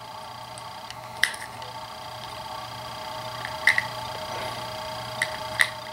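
A few light, sharp clicks as CR123 batteries are handled and fitted into a polymer tactical flashlight-laser unit, over a steady hum.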